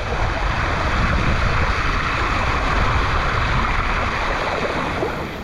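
Hurricane wind buffeting an action camera's microphone, with a steady rushing hiss of rain and water. It eases slightly near the end.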